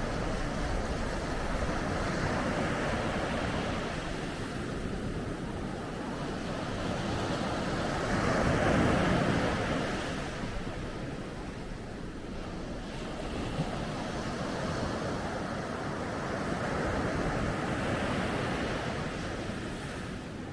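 Ocean waves breaking and washing on a beach, swelling and ebbing in slow surges, the largest about halfway through.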